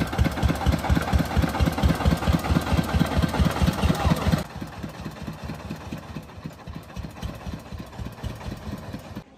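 Single-cylinder diesel engine of a farm three-wheeler running under way with a rapid, even knock, the vehicle loaded with bricks. The engine drops noticeably in loudness about four seconds in and keeps running.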